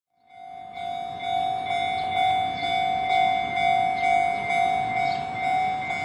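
Japanese railroad crossing alarm ringing its repeated "kan-kan" warning, about two strokes a second. It fades in over the first second.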